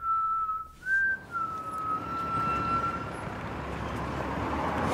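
A person whistling a few held notes that step up and down in pitch, the last note held for about two seconds before fading. Road traffic noise swells beneath it toward the end.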